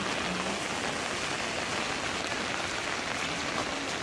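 Heavy rain falling steadily: an even hiss of rain on grass and surroundings, with a few single drops ticking.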